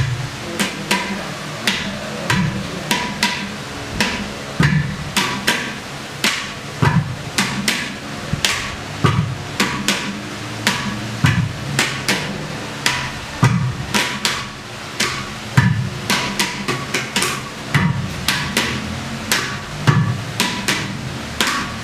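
Clay pot drums played by hand in a steady rhythm: a deep, hollow low stroke about every two seconds, with quicker sharp slaps and taps between.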